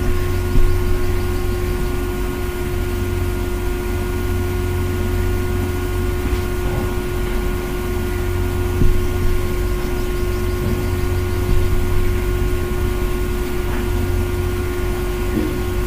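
Steady low background hum with a constant mid-pitched tone over it, and a few faint clicks.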